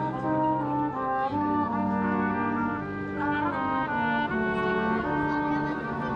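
Brass band playing a tune, trumpet and trombone holding notes over a tuba bass line.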